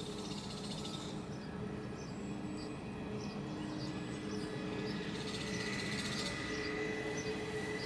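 Distant jet airliner approaching, its engines a steady hum with a whine that grows slightly louder. Small birds chirp repeatedly in short high notes throughout.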